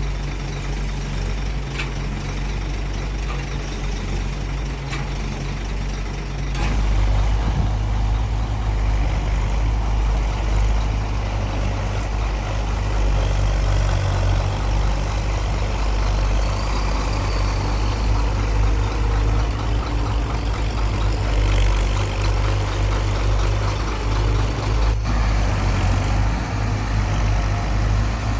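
Heavy engine of cane-handling machinery running steadily, growing louder about six seconds in.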